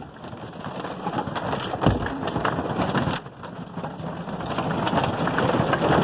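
Marble-sized hail hitting an all-aluminum RV trailer's roof and walls, heard from inside as a dense, continuous clatter of hits. There is a deep thump about two seconds in, and the clatter grows louder in the second half.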